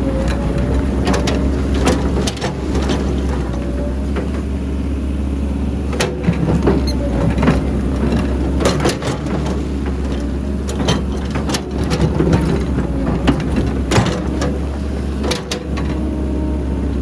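Excavator's diesel engine and hydraulics working steadily, with a faint wavering whine and frequent sharp knocks and clanks of the bucket and dirt loading into a dump truck.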